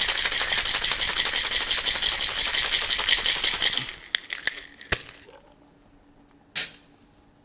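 Ice rattling hard inside a Boston shaker (metal tin and mixing glass) being shaken, stopping after about four seconds. A few faint clicks follow, then a single sharp knock.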